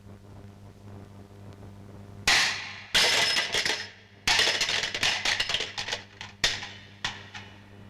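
Loud crashing and clattering sound effects from an animated-film soundtrack, over a low steady hum. They begin with a sudden crash about two seconds in, then two long rattling stretches, then two shorter crashes near the end.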